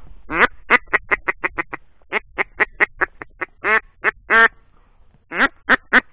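A duck quacking loudly in runs: a long quack followed by a string of shorter, quicker ones, a second run, then a few longer, drawn-out quacks in the middle and near the end.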